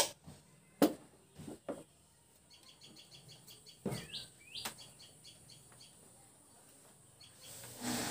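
A handful of sharp taps of a hand tool on the shaft of a battery auto-rickshaw motor, knocking the magnet rotor into place. A bird chirps with quick repeated notes and two falling calls in the middle, among a couple of duller knocks as the motor is handled.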